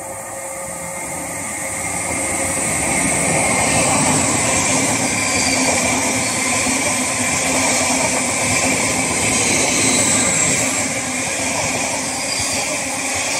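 Greater Anglia electric multiple-unit train running along the platform close by: a steady rushing of wheels on rail and running gear, growing louder over the first few seconds as the train draws level, then holding steady.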